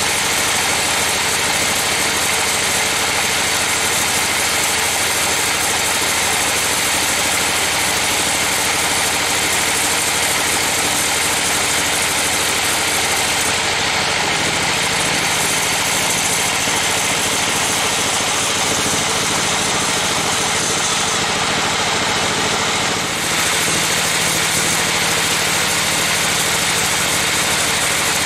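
Band sawmill cutting lengthwise through a trembesi (rain tree) log: the machine runs with a loud, steady whir and hiss as the blade rips the wood. A low hum joins about halfway through.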